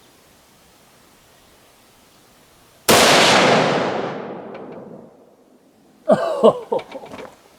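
A single rifle shot from a Ruger Precision Rifle in .308 Winchester, about three seconds in: a sharp crack whose echo rolls away over about two seconds. A short, quieter sound follows about three seconds later.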